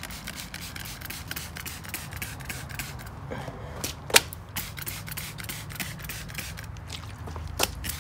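Plastic trigger spray bottle squirting adhesive remover onto old double-sided tape on a plastic side skirt, many quick short sprays one after another, with one sharper, louder squirt about halfway through.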